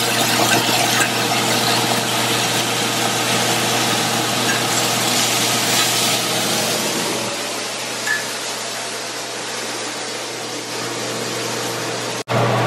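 Thin smash-burger patties with cheese and onions sizzling in a hot cast-iron skillet: a steady frying hiss with a low hum underneath.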